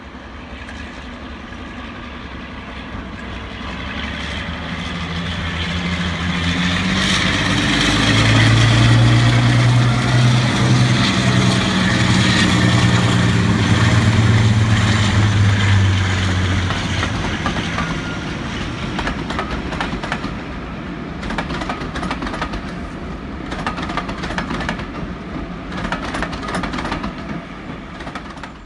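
Class 52 'Western' diesel-hydraulic locomotive D1062 passing close by with a train: its twin Maybach V12 diesel engines build to a loud, deep, steady throb as it goes past, then ease off. The coaches follow, their wheels clicking over rail joints.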